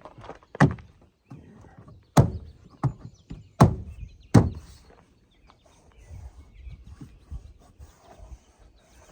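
Car door trim panel being knocked into place by hand, its plastic clips snapping into the door: about five sharp thumps in the first half, then lighter clicks and handling noise.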